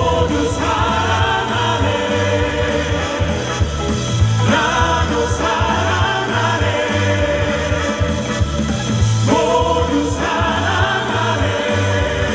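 Live rock band music with heavy bass and drums, with several male voices holding long sung notes in harmony over it. The chords change every few seconds.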